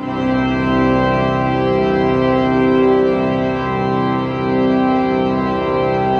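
Church pipe organ playing slow, sustained chords that change every second or so.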